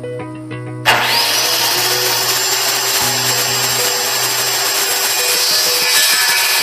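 An electric power tool starts about a second in, its motor winding up with a brief rising whine, then runs steadily and loud. Background music plays underneath.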